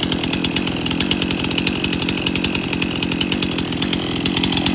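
Stihl MS 291 Farm Boss two-stroke chainsaw running steadily at a constant speed, left to run to check that rain did not get into the engine.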